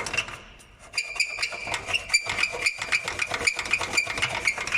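A harsh, rapid stick-slip creaking squeal from a part on the front of a Skoda Octavia III, starting about a second in. It is the braking squeak being reproduced. The cause is not the brakes but a loose-fitting bolted part, which is cured by refitting it with silicone and greased bolts.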